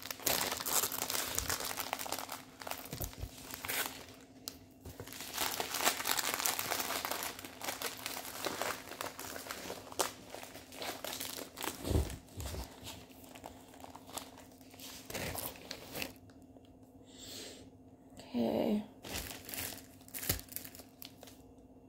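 Clear plastic packaging crinkling and rustling as it is handled and opened, dense through the first several seconds and thinning to scattered rustles near the end.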